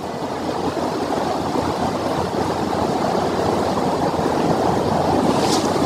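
A mountain creek rushing steadily, slowly growing a little louder, with a short light click near the end.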